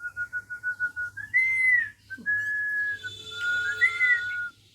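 Clear whistling. A quick run of about eight short whistled notes on one pitch, then a higher note that rises and falls, then longer held notes, stopping a little after four seconds in.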